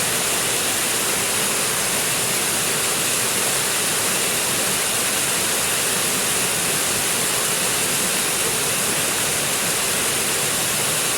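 Forest stream water rushing and splashing in a steady, unbroken hiss, bright and even.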